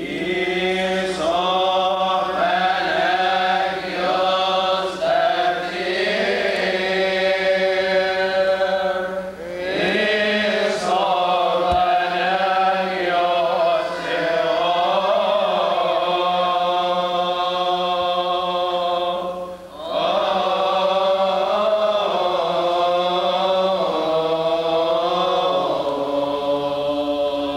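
Coptic liturgical chant: voices chanting a slow, drawn-out melody with long held notes, pausing briefly for breath about nine and nineteen seconds in.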